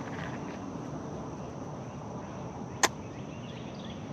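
Steady outdoor background hiss with a single sharp click nearly three seconds in.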